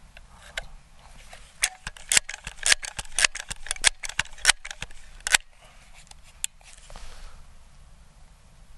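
Crosman 1322 .22 multi-pump pneumatic pistol being pumped six times: a quick run of sharp clacks from the pump lever's strokes, then a lone click. A loud sharp report at the very end is the shot.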